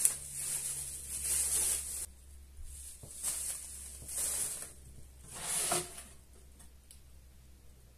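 Plastic packaging crinkling and rustling in about five short bursts as wrapped air fryer parts are handled and unwrapped.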